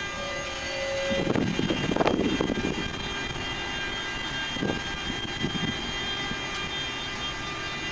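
Class 186 (Bombardier TRAXX) electric locomotive pulling away slowly with a freight train, its traction inverters giving a steady whine of several high tones. A louder stretch of low rumbling noise comes about a second and a half to three seconds in.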